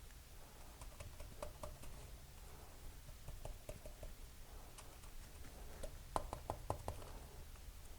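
Faint handling sounds of work on an engine: scattered light clicks and taps, then a quick run of about five sharper ticks a little after six seconds in.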